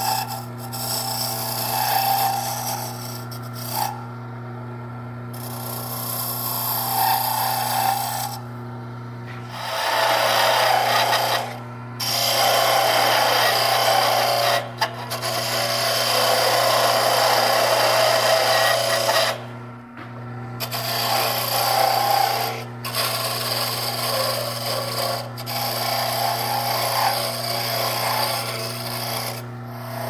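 Wood lathe running with a steady motor hum while a turning chisel cuts the spinning wooden knob blank. The cutting comes as a rough, scraping hiss of shavings in repeated passes, stopping and starting every few seconds as the tool is lifted and set back on the wood.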